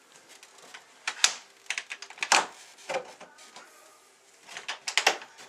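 Sliding glass doors of wooden snake enclosures scraping in their tracks, with several sharp knocks and clicks in two clusters, one about a second in and another about four and a half seconds in.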